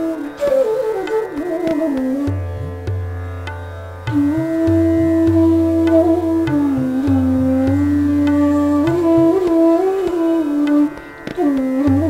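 A D-base bansuri (bamboo flute) plays Raag Megh Malhar, sliding between notes and holding long tones, over tabla keeping medium-tempo tintal and a steady drone. The flute breaks off briefly near the end, then comes back in.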